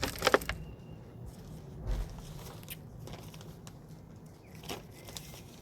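Compost being scooped and poured into a plastic planter tier: a burst of rustling and crackling at the start, then scattered short rustles and knocks.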